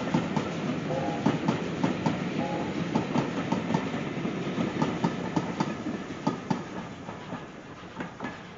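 Wheels of heritage passenger coaches clicking and clattering over the rail joints as the rear of the train passes and runs away. The clatter fades out near the end.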